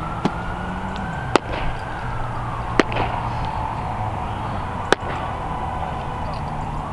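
Outdoor ambience: a steady low drone with a faint gliding whine, broken by four sharp knocks at uneven intervals.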